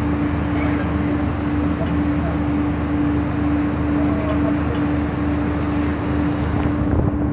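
Steady machinery drone with one constant humming tone, from the ship's controllable-pitch propeller system being run for a test.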